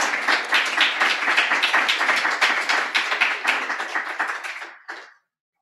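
Audience applauding, with individual claps distinct, tapering off and stopping about five seconds in.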